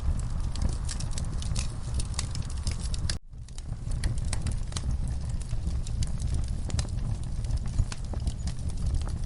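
Logs burning in a fireplace: irregular sharp crackles and pops over the low rumble of the flames. The sound cuts out suddenly about three seconds in and swells back within a second.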